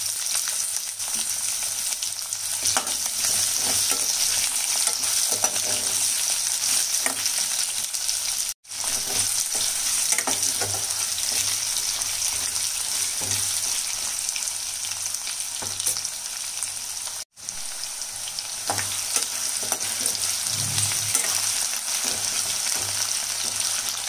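Potato cubes sizzling in hot mustard oil in a steel kadhai, stirred with a steel spoon that scrapes and clicks against the pan now and then. The steady frying hiss cuts out twice for an instant.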